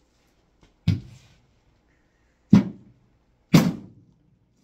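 Three hard blows of a wooden pool cue on the plastic casing of a CD changer and cassette stereo, each a sharp knock with a short low thud after it; the second and third come about a second apart and are the loudest.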